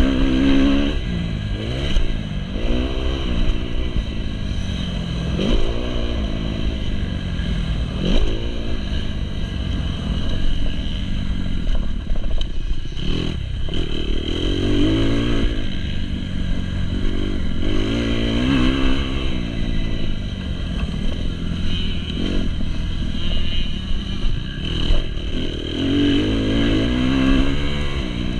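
2019 Kawasaki KX250's single-cylinder four-stroke engine, heard from onboard, revving up hard and dropping off again again and again as the bike is ridden round a motocross track. There is wind noise, and a couple of sharp knocks from the bike about halfway through and near the end.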